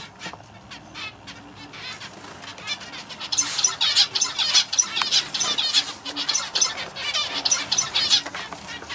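Male zebra finch singing. Soft short notes give way, about three seconds in, to a louder, rapid run of repeated high notes that lasts about five seconds.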